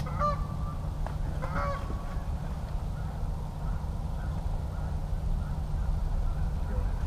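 Two short goose honks, one just after the start and one about a second and a half in, over a steady low rumble.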